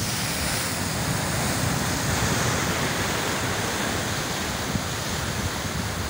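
Ocean surf breaking and churning around rock outcrops, a steady rush of foaming water, with wind buffeting the microphone in low gusty rumbles.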